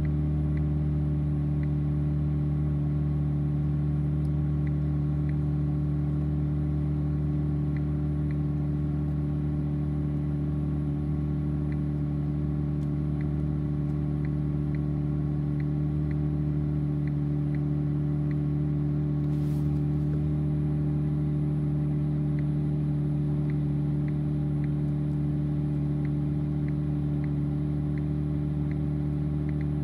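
BMW M4 Competition's twin-turbo 3.0-litre inline-six idling at a steady speed, with no revs, and faint light ticks over the idle.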